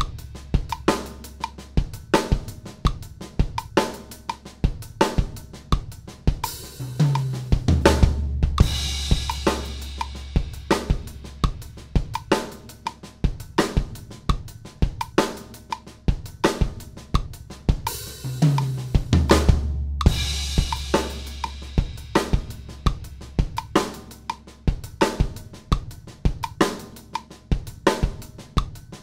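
Acoustic drum kit playing a linear sixteenth-note pattern, where kick, right hand and left hand strike one at a time across hi-hat, snare and bass drum. It turns into a short fill that puts notes on the rack tom and floor tom. It is played over a backing track with held bass notes and cymbal crashes now and then.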